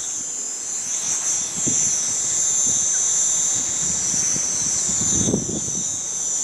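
Quadcopter's electric motors and propellers giving a steady high whine while it flies, with gusts of wind buffeting the microphone.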